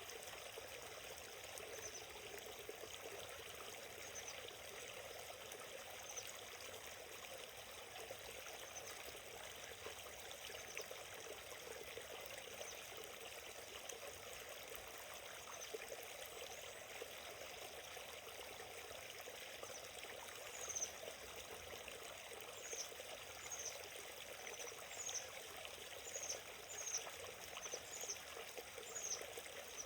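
Small forest stream flowing steadily, a soft even rush of water. Short high falling chirps repeat over it, sparse at first and about one a second in the last third, where they are the loudest sounds.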